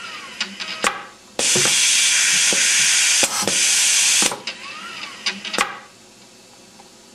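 AccuPlace 3065 adhesive-part applicator at work: compressed air hissing steadily for about three seconds, with three sharp clicks of its actuators and two short whines that rise and fall as the head moves. The hiss stops about a second and a half from the end.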